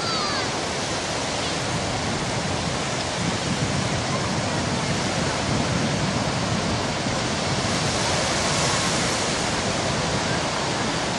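Small ocean waves breaking and washing in over shallow water, a steady rushing surf noise.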